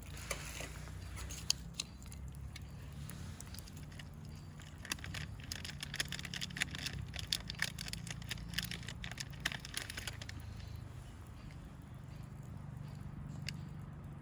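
Wood fire crackling and popping in a fire pit, the pops coming thick and fast through the middle, over a steady low rumble.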